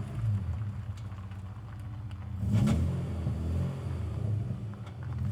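Old rusty car's engine running as the car moves, with a brief rev about halfway through.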